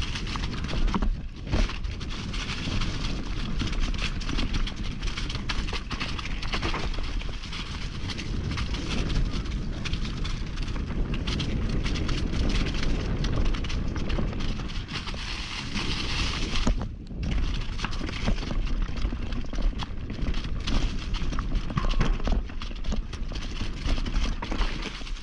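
Mountain bike riding fast down a rocky trail: a continuous rattle and clatter of tyres, chain and frame over stones, with a brief lull about two-thirds of the way through.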